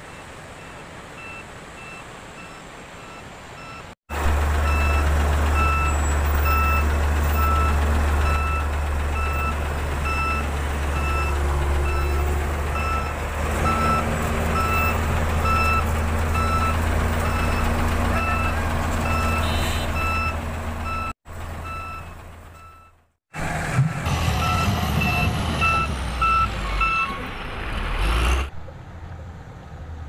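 Truck's reversing alarm beeping steadily, about three beeps every two seconds, over the loud low drone of the truck's engine. The sound cuts out briefly near the two-thirds mark, and then the beeping and engine return.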